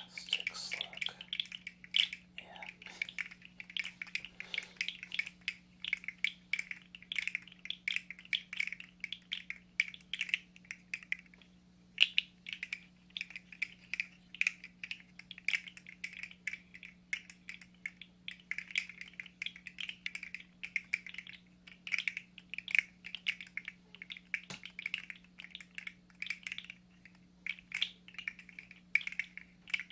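Rapid, irregular clusters of small plastic clicks and clacks from close-miked ASMR handling, pausing briefly about eleven seconds in.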